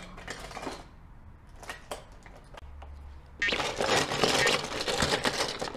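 Toys and things being rummaged through and handled: a few sharp clicks and knocks, then, about three and a half seconds in, a louder dense run of rustling and clattering.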